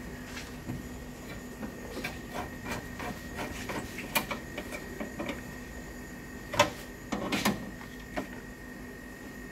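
Scattered light clicks and taps of tools and parts being handled at a car's radiator support, with one sharper click about two-thirds through and a short cluster of knocks just after, over a faint steady hum.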